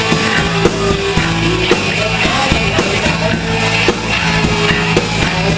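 Rock band playing live: distorted guitar and bass holding sustained notes over steady drum-kit hits.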